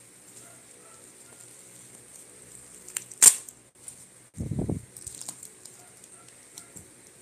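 Hands handling a bubble-wrapped package on a wooden table: one sharp click about three seconds in, a dull low thump a second later, then light ticks and crinkles of the plastic wrap.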